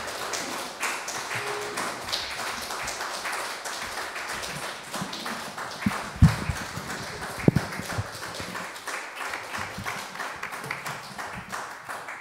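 Audience applauding, a dense patter of hand claps, with two low thumps in the middle; the clapping thins out and fades near the end.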